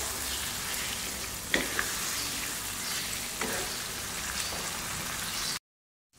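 Mutton and masala frying in oil in a nonstick karahi at the bhuna stage, a steady sizzle while it is stirred with a wooden spatula, with a couple of sharp clicks. The sound cuts off suddenly near the end.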